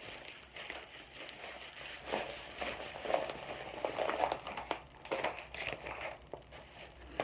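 Paper and plastic packing material rustling and crinkling as a parcel is unwrapped by hand, in irregular handling bursts with small sharp crackles.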